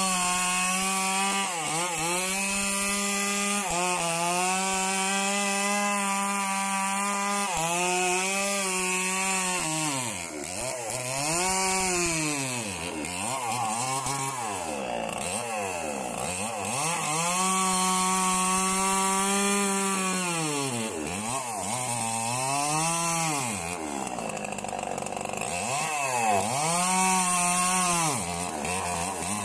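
Chainsaw cutting through a felled coconut palm trunk. The engine runs at high speed, and its pitch sags and recovers again and again as the chain bites into the wood, most often in the second half.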